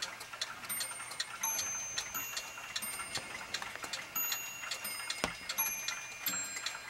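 Plastic ball clock running: an irregular patter of small clicks and light clinks as balls are lifted by its motor-driven arm and roll along the plastic tracks, with one louder click about five seconds in.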